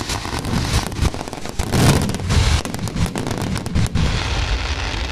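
Aerial fireworks crackling: a dense run of sharp pops and crackles from bursting, glittering stars, loudest about two seconds in.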